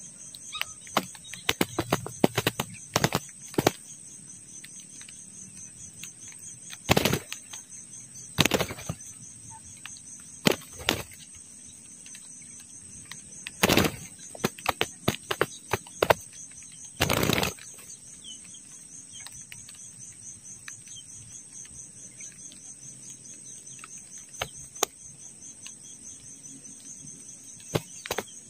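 Doves' wings flapping in short, loud bursts a dozen or so times, the longest about two-thirds of the way through, over a steady high insect buzz.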